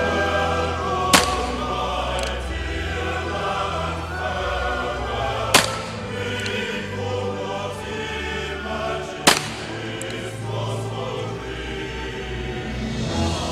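Three single shots from a 1941 M1895 Nagant 7.62 mm revolver, sharp cracks about four seconds apart, over continuous choral music.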